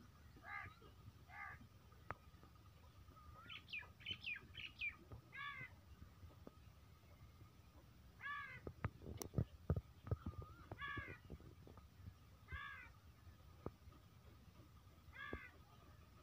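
Crows cawing, single caws every second or two with a quicker run of higher calls about four seconds in. About eight to ten seconds in, a cluster of sharp clicks and thumps is the loudest sound.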